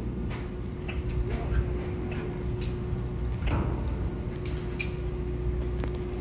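Steady low drone of a large car ferry's engines and machinery with a steady hum through it. Scattered metallic clanks and clicks are heard over it, the loudest about three and a half seconds in.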